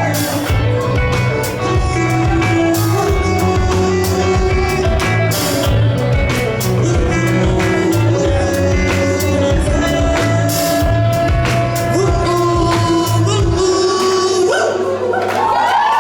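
Rock band playing live with singing, drums, bass and guitars; about two seconds before the end the drums and bass stop and the song rings out.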